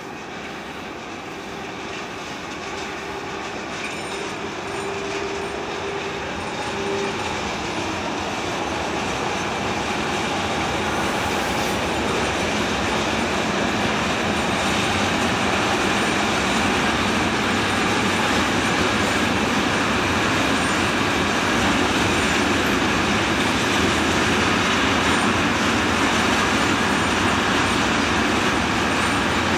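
Electric-locomotive-hauled intermodal freight train of container wagons approaching and rolling past. The running noise of its wheels on the rails grows steadily louder over the first half, then holds steady as the wagons go by.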